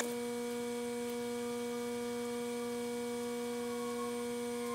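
Steady hum made of one low tone with evenly spaced overtones, with a fainter higher tone slowly falling in pitch through the second half.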